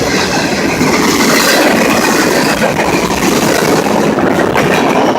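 Mixed freight train rolling past close by: a loud, steady rumble and rail noise of the train, with no horn sounding.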